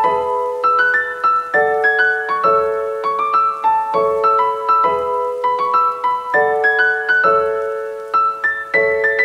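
Background piano music: a light tune of quick, repeating runs of notes over a steady beat of low chords.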